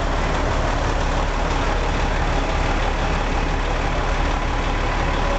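Fire truck engine idling: a steady low rumble with no change in level.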